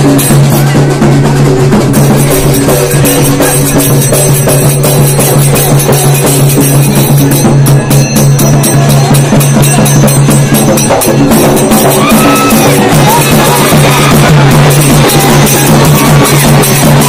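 Loud festival drumming on barrel drums, a fast steady beat of strikes over a steady low tone that carries on with hardly a break.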